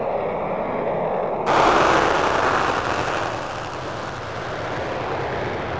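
Military jet engines running on reheat (afterburner), a rough, crackling roar. It starts muffled, then about one and a half seconds in a much louder, harsher close roar cuts in, apparently the Panavia Tornado's twin engines in full afterburner, and fades over the next few seconds.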